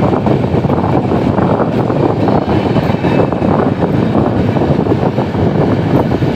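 Broad-gauge intercity passenger train running at speed, heard from the open door: a steady rumble of steel wheels on rail mixed with wind buffeting the microphone.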